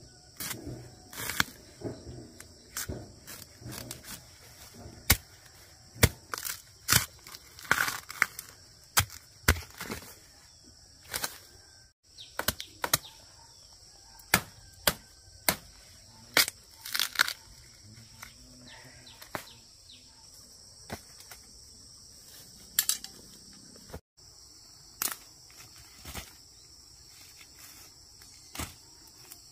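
A machete chopping through the base of giant bamboo shoots: irregular sharp chops and cracks, a few at a time, with dry bamboo leaves and sheaths rustling. Insects keep up a steady high buzz in the background.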